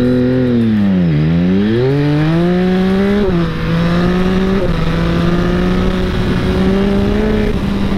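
Yamaha XSR900's 890 cc three-cylinder engine under hard acceleration. The revs dip and climb again in the first couple of seconds, then rise in steps, dropping sharply at upshifts about three seconds in, again a second or so later, and near the end.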